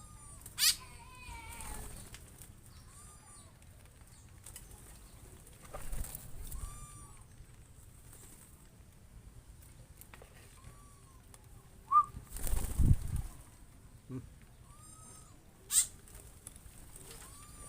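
Aviary birds calling: short arched chirps repeating every few seconds, with two sharp, loud, high calls, one near the start and one near the end. About twelve seconds in, a loud rustling bump is the loudest sound.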